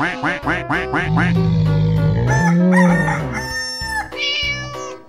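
Cartoon animal sound effects over children's background music: a quick run of short rising calls, then a rooster crowing with long held notes in the middle.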